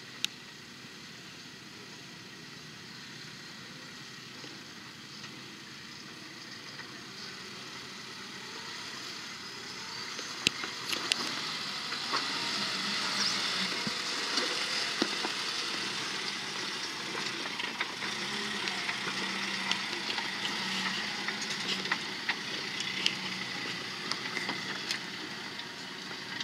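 Suzuki Samurai crawling slowly over a rutted dirt trail, its engine running steadily under the crunch of its tyres on dirt and rock, with scattered sharp clicks of stones. It grows louder about ten seconds in as the vehicle comes up close.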